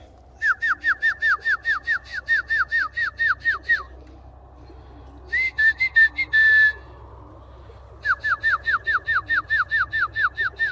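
Feed whistle calling pigeons down to land: a run of quick, falling whistled notes, about four a second, then a short warbled held note, then a second run of falling notes. It is the call the birds learn at feeding time, used here to bring Birmingham Roller pigeons down to the loft.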